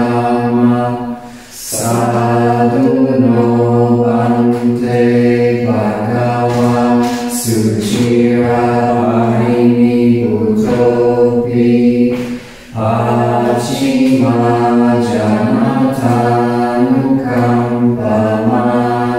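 Buddhist chanting in Pali: voices intoning together on a near-steady pitch, breaking briefly for breath twice, about a second and a half in and again near thirteen seconds.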